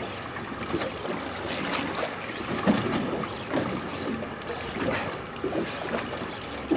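Wind on the microphone over sea water lapping and splashing against a boat's hull, an uneven hiss that swells and falls.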